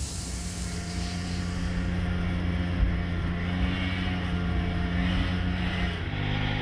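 Small van's engine running steadily with a low, even hum; its tone shifts near the end.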